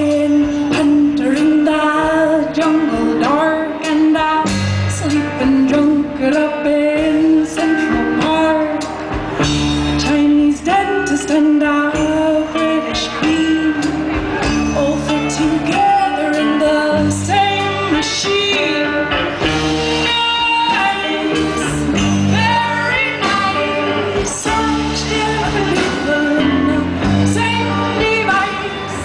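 Live band music with a woman singing lead into a microphone, her voice held and wavering over a changing bass line and steady drum strokes.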